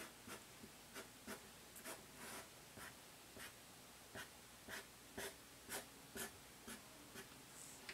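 Felt-tip marker drawing on paper: a faint, quick series of short strokes as a curve is traced.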